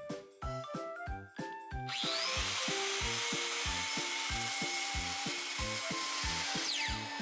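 Makita dust-collecting circular saw starting up with a rising whine about two seconds in and cutting through thin wooden boards, its dust extractor running with it; near the end the saw winds down with a falling whine. Background music with a steady beat runs underneath.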